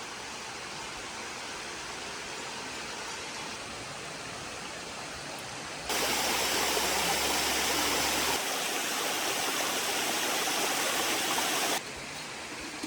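Steady rushing noise with no distinct events. It jumps louder about six seconds in and drops back just as abruptly about a second before the end.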